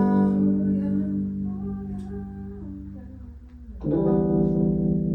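Rehearsal music: a held chord slowly fades, then a new chord is struck about four seconds in and rings on.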